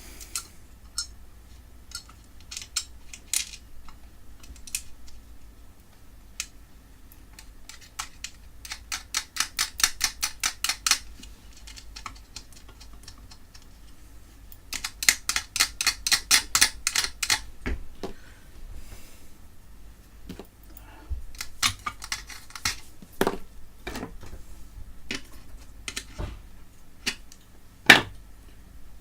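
Metal parts and tools clicking and tapping as a transformer bracket and nuts are worked back into a UPS chassis, with two runs of rapid, even clicking at about ten a second and a few louder single knocks near the end.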